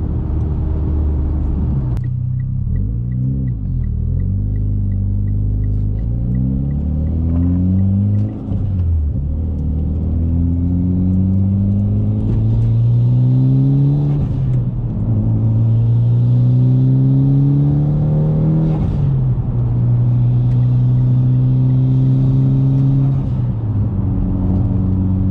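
Mitsubishi Lancer Evolution X's turbocharged four-cylinder engine pulling through the gears, its pitch climbing and then dropping back at each upshift, about three times. A faint quick ticking, about four a second, runs for a few seconds near the start.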